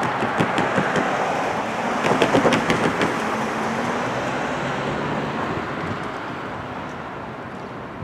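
A car driving over a railroad grade crossing: tyre noise swells, with a quick clatter of knocks in the first few seconds as the wheels go over the rails, then fades away as it drives off.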